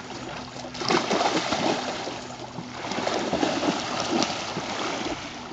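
Water splashing and lapping as a dog swims, paddling through choppy water; the splashing grows louder about a second in and stays irregular.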